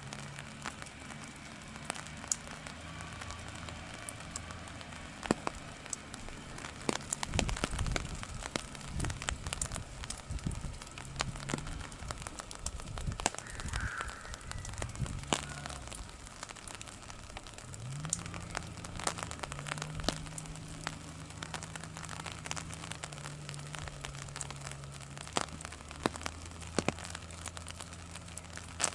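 Raindrops tapping on an umbrella close to the microphone, in irregular clicks that come thickest for a few seconds near the middle. Underneath, distant machinery hums low, its pitch stepping up and down as it changes speed.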